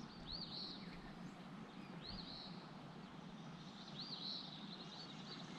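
A bird calling three times, about two seconds apart, each call a quick pair of high arched notes, over a steady background rush.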